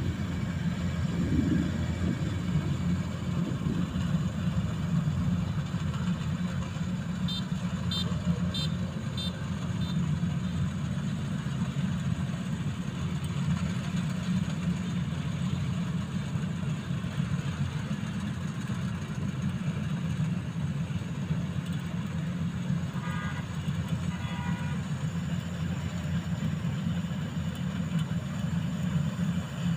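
Rice combine harvester's engine running steadily as it works the paddy, a constant low rumble. Short clusters of high chirps sound about eight seconds in and again near twenty-three seconds.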